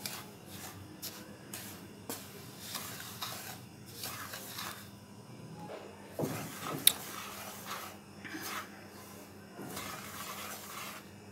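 Wooden spatula stirring dry semolina in a metal pan, with repeated scraping and rustling strokes as the grains are turned over while dry-roasting. A single sharp knock about seven seconds in.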